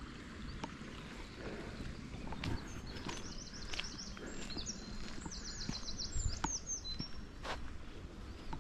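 A small songbird singing a fast run of high, repeated notes for a few seconds in the middle, over faint outdoor background, with scattered clicks of footsteps.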